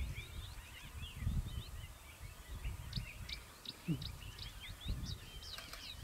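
Birds chirping: many short, high calls overlapping throughout, over a low rumble that swells and fades. A short, low falling call sounds about four seconds in.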